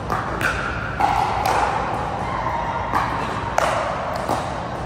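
Pickleball paddles striking a plastic pickleball in a rally: a string of sharp pops, about half a second to a second apart, each ringing on in the large hall.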